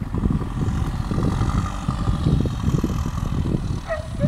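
Wind buffeting the microphone over the distant running of a backhoe loader's diesel engine at work.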